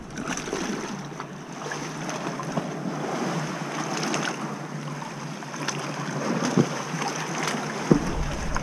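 Sea water sloshing and lapping against an inflatable rowing dinghy as it is rowed with oars along a rocky shore, with a few sharp splashes near the end.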